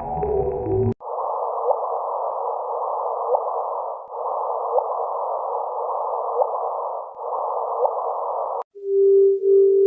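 Space recording turned into sound: a hiss held in a narrow middle band, with faint rising chirps about every second and a half, repeated in three looped sections. It stops suddenly near the end, and after a short gap steady low tones begin.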